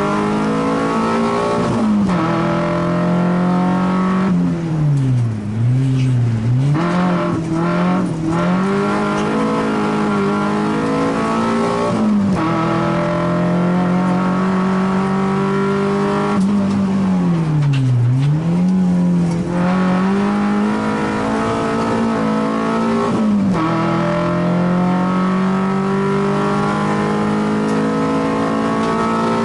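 Race car engine heard from inside the cabin at full throttle, its pitch climbing and then dropping sharply at gear changes about two, twelve and twenty-three seconds in. Twice, around five and eighteen seconds in, it comes off the throttle and the pitch dips and recovers in quick swoops as the car slows for a bend and pulls away again.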